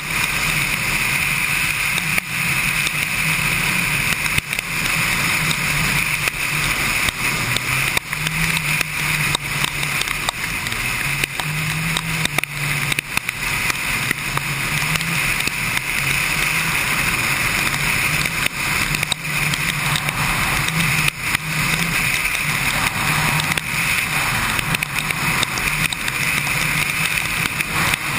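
Kawasaki Ninja sport bike's engine running as it rides along, its low note stepping up and down a little with the throttle, under a steady rush of wind and wet-road noise.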